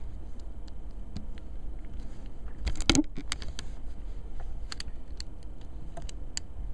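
Scattered small clicks and taps of iPhone 3G parts being handled and pressed together during reassembly, with a louder cluster of clicks about three seconds in.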